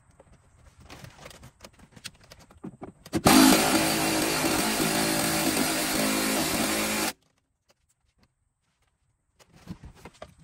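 A loud motor starts suddenly, runs steadily for about four seconds with a hiss over its hum, then cuts off abruptly. Light handling noise comes before it and near the end.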